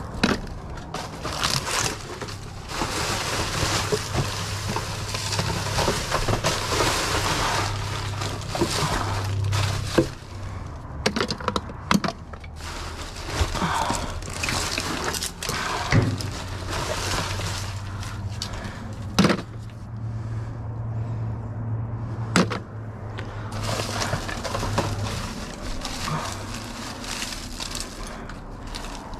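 Rummaging through junk in a dumpster: repeated knocks, clanks and clatter of objects being shifted and pulled out, with rustling and crunching between them. A low steady hum runs under parts of it.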